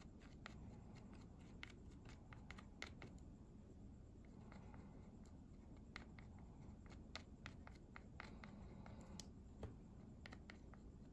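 Near silence with faint, scattered clicks and light scratching from hands handling the small valve and magazine parts.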